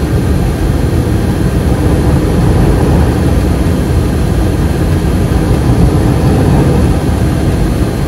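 Gas furnace running at full fire: six burners lit with the inducer and blower fans going, a steady low rushing drone.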